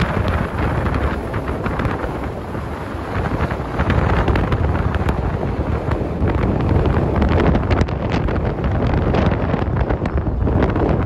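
Wind buffeting the microphone of a vehicle moving along the road, a loud, steady rush with irregular gusts and road noise underneath.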